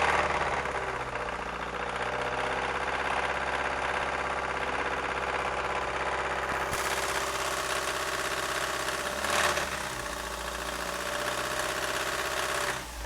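A 1999 Ford Focus 1.6 Zetec petrol four-cylinder engine runs on the throttle at raised revs, with a surge at the start and a short blip about nine seconds in. It makes a harsh, clattering note that the owner calls horrible and likens to a diesel engine.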